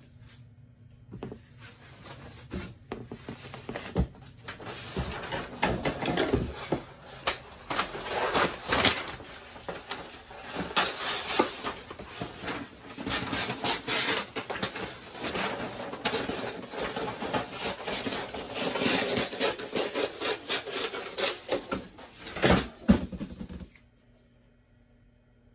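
Cloth rubbing and scraping directly against the camera's microphone, with scattered knocks and rustles of handling. It cuts off suddenly a little before the end.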